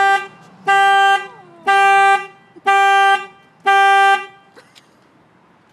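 Car horn sounding in a series of short blasts about one a second, each about half a second long, five in all. The horn is honked by a dog pressing it. The blasts stop a little past four seconds in.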